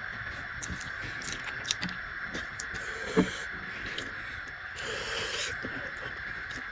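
A person eating close to the microphone: chewing with scattered lip smacks and small clicks, one sharper click about three seconds in, and a short breathy rush of air around five seconds.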